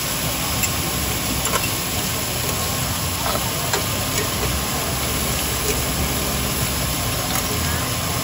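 Chicken and eggs sizzling on a flat-top steel griddle over a steady rushing din, with a few light metal clinks scattered through as tongs and steel lids touch the plate.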